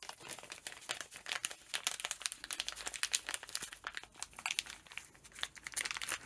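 Clear plastic parts bag crinkling and rustling in the hands, a dense irregular crackle throughout, as it is handled to get at the valve stem seals inside.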